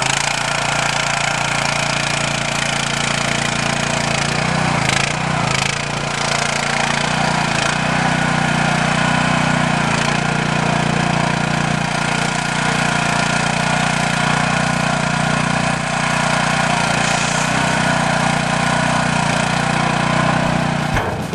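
Small engine of a Scorpion 900 articulated mini excavator running steadily as it drives a tipping dump bucket, with a few knocks and rattles about five seconds in.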